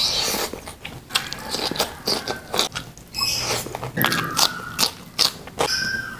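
Close-up eating sounds: mouthfuls of rice being chewed and crisp bites into raw cucumber, a dense run of sharp crunches and wet mouth noises.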